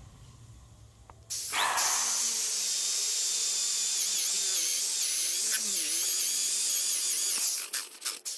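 Corded electric drill boring into an old white mahogany fence post: the motor spins up about a second in and whines at a high pitch, its speed dipping and recovering as the bit bites into the hardwood. Near the end it stops and starts in a few short bursts.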